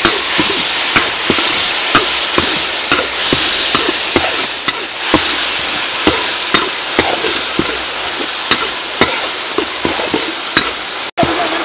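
Minced garlic and a red sauce sizzling in hot oil in a steel wok, stirred with a metal ladle that clicks and scrapes against the pan about twice a second. The sound drops out for an instant near the end.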